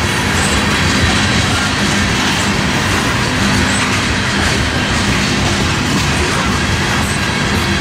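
Freight train of loaded crude oil tank cars rolling past at close range: a steady rumble and clatter of steel wheels on the rail joints.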